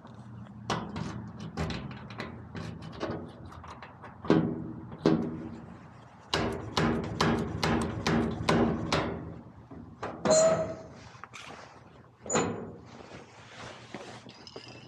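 A locked house door being worked open: a long series of sharp clicks, knocks and rattles from the door and its lock, quickening into a fast run of knocks about six seconds in.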